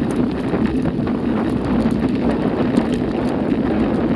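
Steady wind rumble on the microphone of a camera riding along on a mountain bike down a stony dirt track, with small ticks of tyres crunching over loose stones and the bike rattling.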